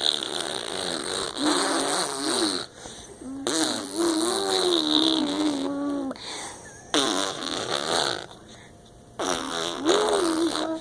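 A young child's voice imitating a race-car engine with buzzing "brrrm" sounds, in about four runs whose pitch rises and falls.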